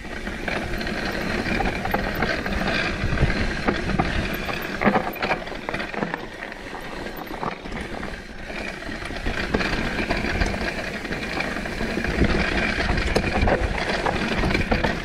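Mountain bike riding down a rocky dirt trail: tyres running over dirt and rock, with the bike rattling and knocking over bumps throughout.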